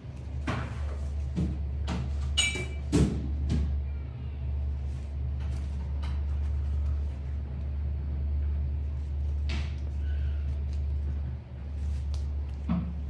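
A steady low hum with scattered knocks and thumps, the loudest about three seconds in, just after a brief high-pitched squeak.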